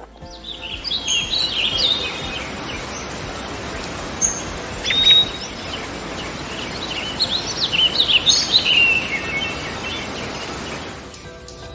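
Birds chirping in quick clusters of short high calls over a steady background hiss, with a louder call about five seconds in.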